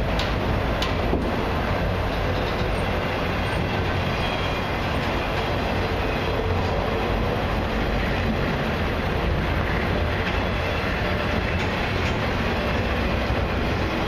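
Autorack freight cars rolling slowly past: a steady rumble of steel wheels on rail, with a couple of faint clicks in the first second.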